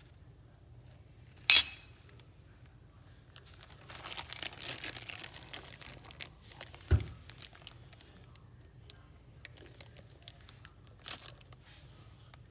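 Clear plastic zip-top bag crinkling as it is handled, with a sharp click about a second and a half in and a dull thump about seven seconds in.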